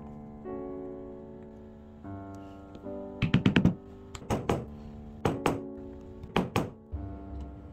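A mallet striking a leather stitching chisel, punching stitch holes through the leather into a poundo board. There are four quick bursts of sharp taps, each of two to five strikes, over soft piano background music.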